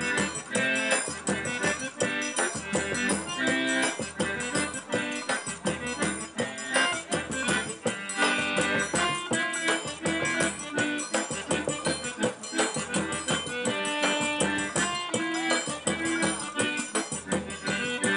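Eight-bass diatonic button accordion (pé de bode) playing a lively tune with a steady beat.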